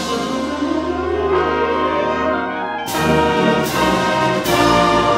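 A school wind band playing a slow passage of sustained chords, with brass prominent. New chords enter about three seconds in and again a second and a half later.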